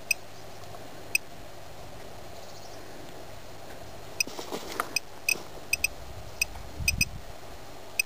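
Handheld Geiger counter (Gamma-Scout) ticking: short, sharp clicks at random intervals, each one a detected count, coming more often in the second half as the reading rises over radioactive uranium-mine spoil. A brief rustle and a low rumble, likely from handling or wind on the microphone, fall between them.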